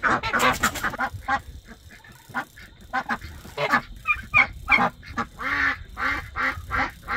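Domestic ducks in a pen quacking: many short, repeated calls, some coming in quick runs of several in a row.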